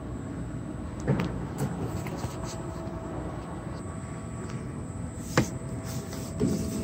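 Steady mechanical hum of an automated library book-return machine and its conveyors, broken by two sharp knocks, one about a second in and a louder one about five seconds in.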